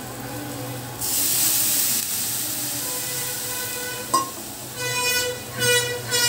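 Water poured into a hot kadai of sesame oil and fried onion, tomato and goat brain: a sudden loud sizzling hiss about a second in, settling into steady sizzling. A click comes about four seconds in, and near the end three short, high, steady tones sound.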